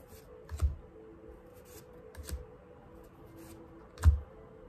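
Tarot cards being handled: cards slid off the front of the deck and tucked to the back, giving a few light clicks and soft thuds, the loudest about four seconds in.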